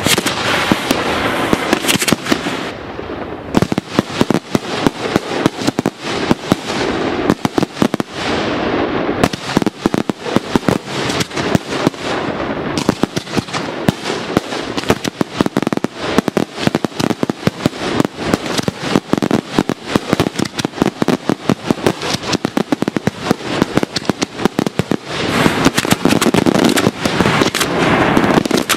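Daytime fireworks barrage: a continuous run of sharp firecracker bangs and aerial salute bursts, many per second. It is densest at the start and again near the end.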